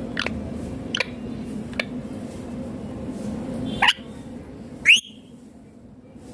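Indian ringneck parakeet giving five short, sharp calls, the last two louder. The loudest is a quick upward-sweeping squawk about five seconds in, and a steady low hum underneath cuts out just after it.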